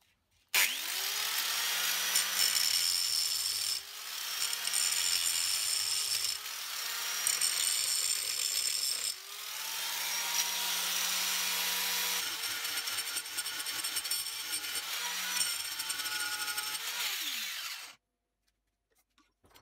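Angle grinder grinding steel, cutting out a slot between a row of drilled holes in a 10 mm steel plate held in a vise. The motor's pitch wavers as the disc bites, with a few short breaks, and it winds down and stops near the end.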